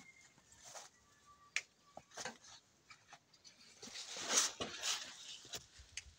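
Leaves and plant stems rustling and the phone being handled as it is moved through leafy plants, loudest about four seconds in, with scattered light clicks and taps.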